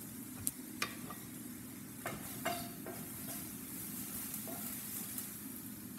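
Shallots, red bell pepper and mushrooms sizzling steadily in oil in a frying pan, with a few light clicks and taps as seasoning is shaken in from a jar.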